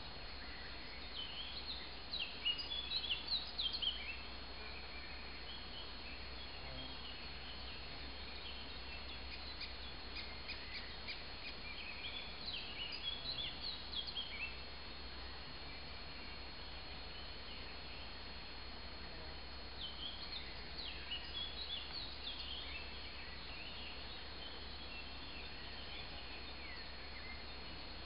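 Wild songbird singing bouts of quick, high chirping phrases, a few seconds apart and loudest near the start, over steady outdoor background noise.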